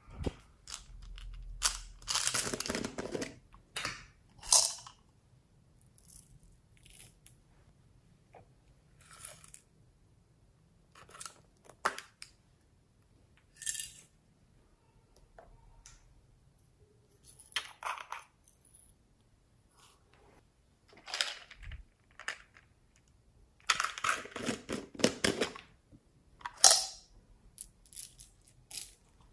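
Hands handling small plastic pots and pouring beads and sprinkles onto slime in a glass dish. Scattered clicks and rattles are heard, with longer pouring rustles about two seconds in and again near the end.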